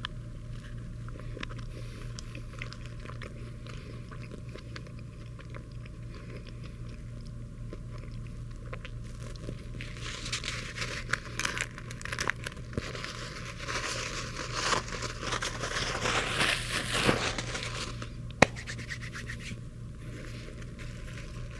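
Quiet chewing over a steady low hum, then from about ten seconds in a burger's paper wrapper crinkling and rustling loudly for several seconds as it is handled. One sharp click comes near the end.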